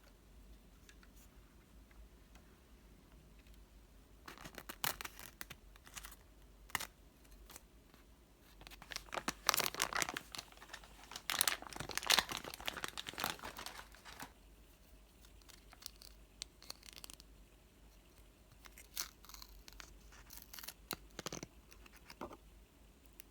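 Packaging being torn open and crinkled by hand: scattered crackles about four seconds in, a dense stretch of tearing and crinkling from about nine to fourteen seconds, and a few more crackles near the end.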